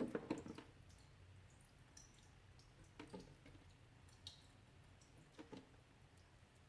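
Melting ice dripping and clicking: a quick flurry of drips at the start, then a few single scattered drips against a quiet background.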